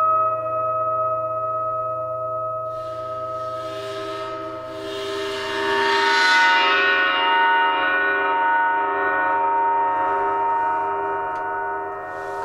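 26-inch Paiste Symphonic gong bowed at its edge with a rosined cello bow, sustaining a dense cluster of ringing tones. A fresh bow stroke about three seconds in adds a scraping hiss and brings in higher overtones that swell, then ring on and slowly fade.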